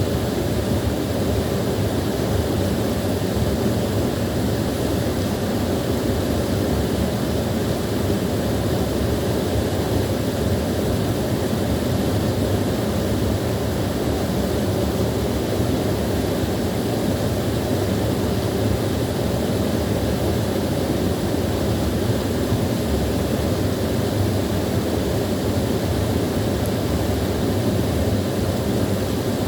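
Small waterfall pouring steadily: an even, unbroken rush of falling water, heaviest in its low and middle tones.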